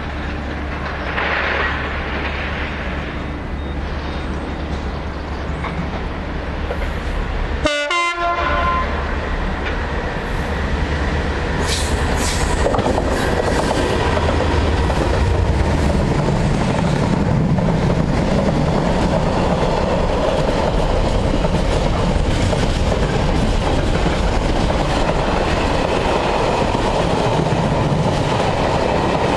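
Class 66 diesel locomotive, a two-stroke V12, accelerating as it approaches and passes hauling a container freight train, and sounding its two-tone horn. The sound builds from about ten seconds in and stays loud as the container wagons rumble and clatter by over the rail joints.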